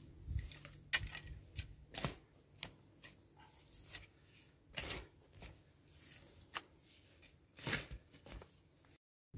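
Footsteps and movement on dry straw and twigs: irregular crunches and rustles, about one or two a second.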